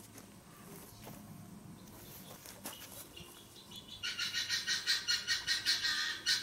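A few faint clicks of small plastic pipe fittings being handled. Then, about four seconds in, a loud animal call starts up: a rapid pulsing trill of roughly four pulses a second.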